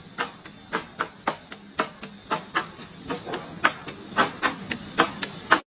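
Rapid series of sharp knocks or taps, about three to four a second and uneven in strength, cutting off suddenly near the end.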